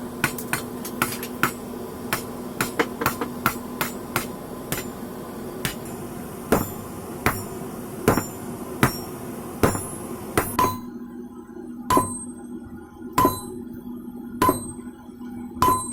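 Blacksmith's hand hammer forging rebar on an anvil: a quick run of lighter blows, then slower strikes about a second apart, each one ringing.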